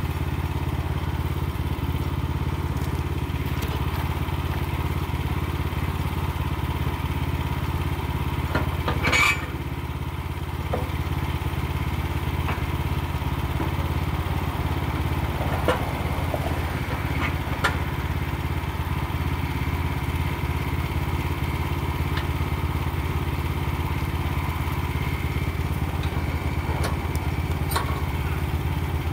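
Wood-Mizer LX25 sawmill's gas engine idling steadily. A sharp knock about nine seconds in, and a few lighter knocks later, come from the log being shifted on the mill bed.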